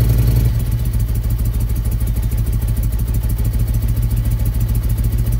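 Harley-Davidson Evolution V-twin, freshly fitted with a Mikuni flat-slide carburettor, running on choke; about half a second in it drops from a throttle blip to a lower, pulsing idle.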